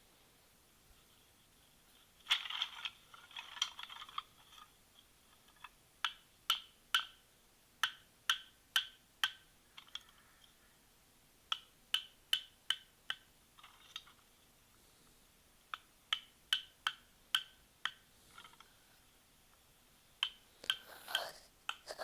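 Wood being struck with sharp knocks, in runs of several strikes about two a second with short pauses between: a wooden stake being driven into the ground. About two seconds in there is a brief rustling scrape.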